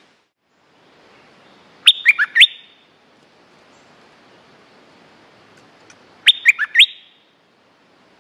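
Bulbul calling loudly and close: two short phrases of four or five quick, sharp notes that drop in pitch, about four seconds apart.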